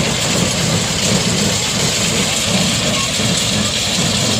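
John Deere 730 two-cylinder diesel tractor running steadily under load, driving a John Deere 347 square baler as its pickup takes up hay and the machine packs and bales it.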